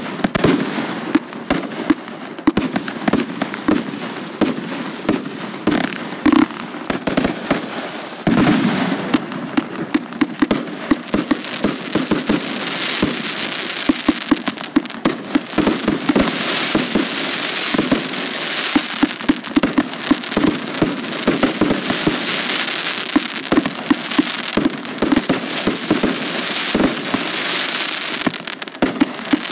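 Fireworks going off in rapid succession: a dense run of sharp bangs and pops from aerial bursts, with a steady hiss joining in about twelve seconds in.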